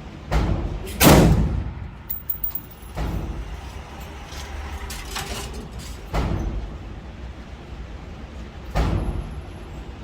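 Five gunshots at uneven intervals, each a sharp crack with a low rumbling tail, the loudest about a second in. A few light metallic clicks come between the second and third shots.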